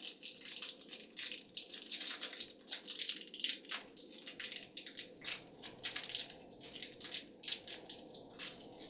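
Plastic blind-bag wrapper crinkling with many quick, irregular crackles as it is torn open and handled.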